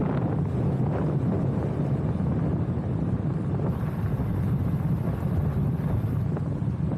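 Steady wind rumble on the microphone over a moving vehicle's running noise, as heard while riding.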